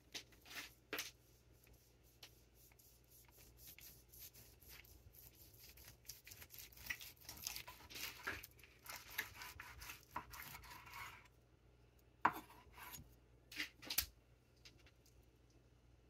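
Long kitchen knife slicing through a raw beef strip loin with its fat cap: soft, repeated rasping strokes of the blade through fat and meat, with a few sharp clicks near the end.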